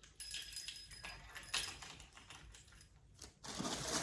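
Light jangling and rattling as an unboxed item is handled, followed by a louder rustle of packaging about three and a half seconds in.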